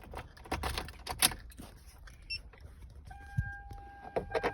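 Car keys jingling and clicking as the ignition key is put in and turned on. About three seconds in, a steady electronic tone comes on and keeps sounding.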